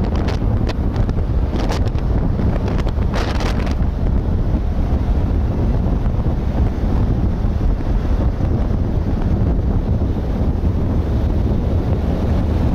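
Wind buffeting the microphone of a camera on a moving vehicle: a steady, loud low rumble, with a few short crackles in the first four seconds.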